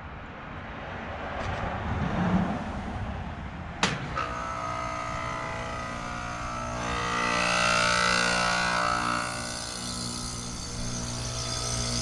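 American Standard Silver series heat pump outdoor unit: a rushing noise rises and falls, then a sharp click about four seconds in. After the click comes a steady compressor hum with several tones, and a hiss that swells and fades in the middle.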